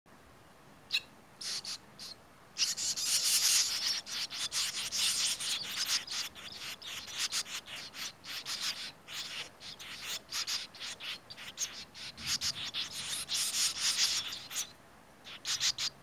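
Swallow nestlings in a mud nest giving a rapid, high-pitched chatter of short, scratchy calls, with a few separate calls at first and again near the end.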